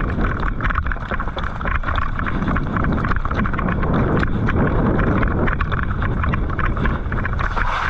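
Wind buffeting the microphone in the rain: a loud, steady low rumble with a dense patter of small ticks.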